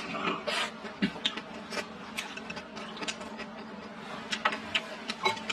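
Close-up eating sounds: chopsticks clicking and scraping against a bowl as rice and vegetables are pushed into the mouth, then chewing, in many small irregular clicks. A faint steady hum runs underneath.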